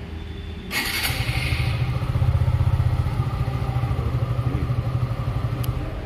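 Suzuki Gixxer 150 single-cylinder engine running, then revved about a second in and held at raised revs for about five seconds before the throttle is let off.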